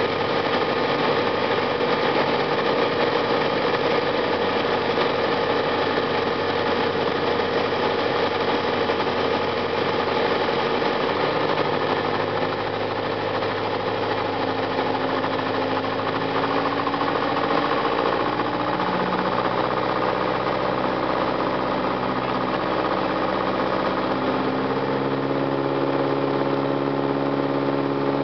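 Piper Cherokee 140's four-cylinder Lycoming engine and propeller running steadily, heard inside the cabin. The engine note slides lower from about midway and steps down again near the end as power is eased back on the approach.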